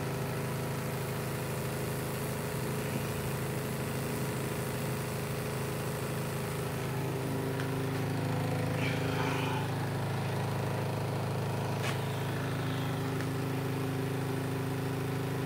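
Steady electrical buzz from a high-voltage Lichtenberg wood-burning rig as current arcs through the wood and burns the fractal pattern. One sharp snap comes late on.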